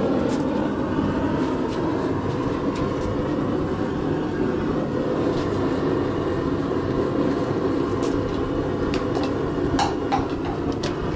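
Forge running with a steady low rushing roar while a forged steel hook heats in it, with a few light clicks scattered through.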